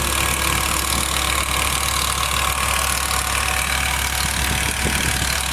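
BMW E60 M5's S85 V10 engine idling steadily with a ticking noise.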